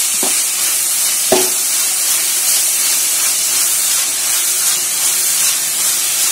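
Sliced onions and green chillies frying in hot oil with a steady sizzle, stirred with a steel spatula. The spatula knocks against the metal pan twice near the start, the second knock the loudest sound.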